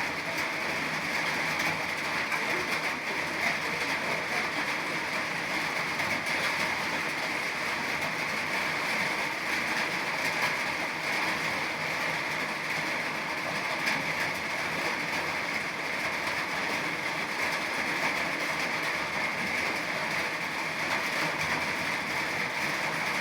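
Steady rain falling, an even hiss with fine patter that does not let up.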